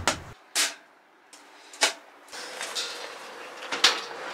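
Thin metal stove-table panels being fitted around a camping heater: several sharp clanks and clicks as the plates are set down and slotted together.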